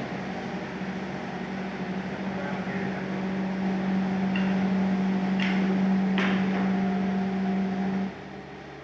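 A motor running with a steady hum at one pitch, with a few faint clicks, stops suddenly about eight seconds in.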